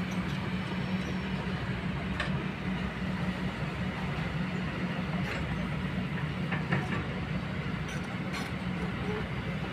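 Diesel engine of a long-reach Kobelco excavator running steadily as it digs, with a few short clicks scattered through it.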